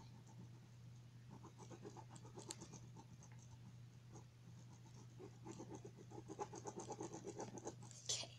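Pen scribbling rapidly back and forth on paper laid over a cardboard shoebox, colouring in a dark area in spurts of quick strokes with short pauses. A louder brushing sweep comes near the end as the hand moves off the paper.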